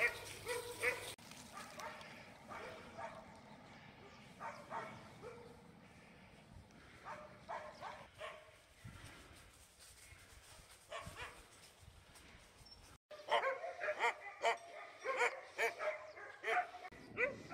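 Laika puppies barking and yipping in play: scattered short barks at first, then a quick run of louder, denser barks and yips after a brief gap near the end.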